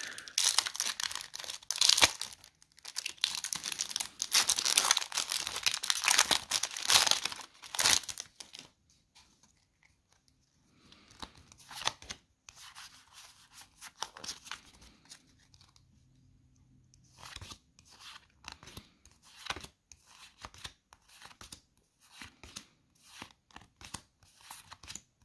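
Crinkly foil booster-pack wrapper being torn open and crumpled for about eight seconds, then softer intermittent rustles and clicks of trading cards being handled and flicked through.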